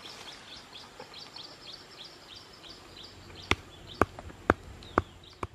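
Stone pestle striking in a stone mortar: about five sharp knocks roughly half a second apart in the second half. Before the knocks, a bird chirps rapidly and repeatedly in high, short falling notes.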